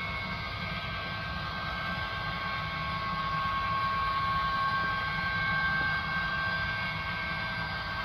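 Model train running along layout track: a steady rolling whir with a high motor whine, swelling a little midway.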